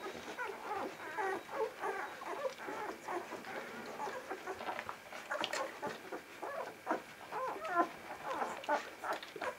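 A litter of young vizsla puppies squeaking and whimpering continually while they suckle, many short high chirps overlapping.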